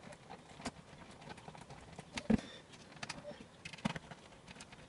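Irregular small clicks and knocks of a screwdriver and screws against a metal DVR case as a hard drive is screwed in place, with one louder knock a little past halfway.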